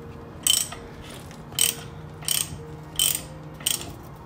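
Socket ratchet wrench clicking in five short bursts, one each time the handle swings back, as the oil filler plug of a motorcycle's shaft-drive final-drive housing is tightened.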